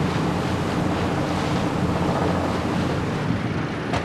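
Fishing boat's engine running steadily while trolling slowly, a constant low drone, with water washing along the hull and wind buffeting the microphone.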